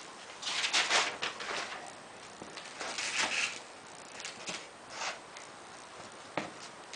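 Parts and packaging being shifted and slid around by hand: several short bursts of rustling and scraping, with a single knock near the end.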